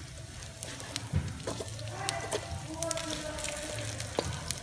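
Chicken and lemongrass stir-frying in a steel wok: a steady sizzle, broken by sharp clicks of a metal spatula against the pan.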